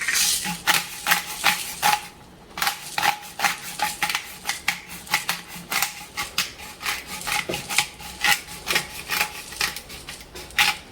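A hand pepper grinder twisted over food: a quick run of rasping clicks, several a second, with a brief pause about two seconds in.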